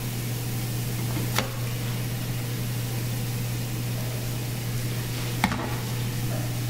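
Steak sizzling steadily on a gas grill's flat griddle over a constant low hum, with two short sharp clicks, one about a second and a half in and one near the end.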